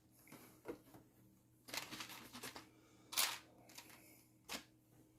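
Plastic LEGO bricks clicking as pieces are handled and pressed into place: a few scattered sharp clicks, the loudest about three seconds in.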